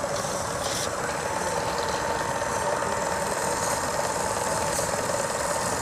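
Live steam engine of a model steam launch running steadily with a rapid, even beat. A thin steady whine joins in about a second in.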